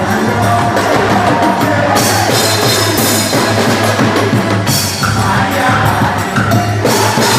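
Music with drums and percussion playing steadily.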